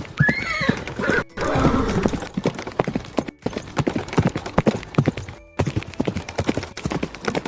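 A horse whinnies in the opening second or so. Then its hooves clip-clop in an even, rapid rhythm through the rest, with a couple of brief breaks.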